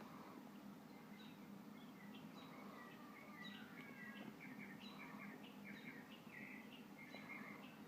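Faint, busy chirping of small birds over a steady low hum.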